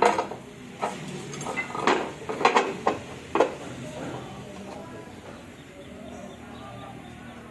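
A run of about seven sharp knocks and clinks of hard tile work in the first three and a half seconds, then a low steady background.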